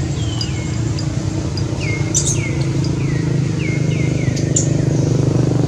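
Short high chirps, each sliding quickly down in pitch, repeated irregularly about ten times, over a steady low engine hum.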